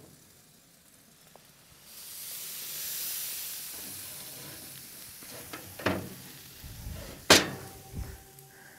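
Hot cast-iron griddle plates being turned over with a pressed sandwich between them: a hiss of sizzling fat and cheese for a few seconds, then several hard metal clanks, the loudest near the end, as the plates are set back down on the grill.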